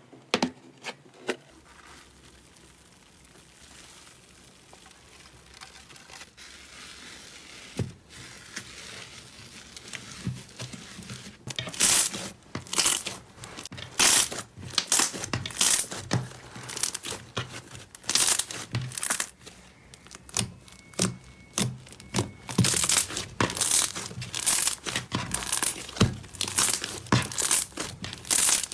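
Slime being squeezed and worked by hand, giving wet crackles and sharp popping snaps. It is sparse and quiet at first and becomes busy and louder from about eleven seconds in.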